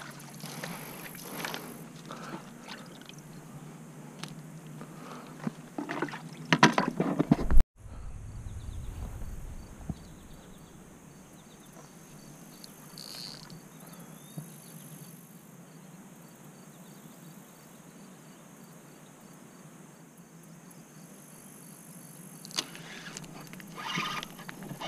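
Fishing gear being handled close to the microphone: rustling, clicks and knocks, ending in one loud knock about seven seconds in. Then a quiet, steady outdoor background with faint, evenly spaced ticking, and more handling noise near the end.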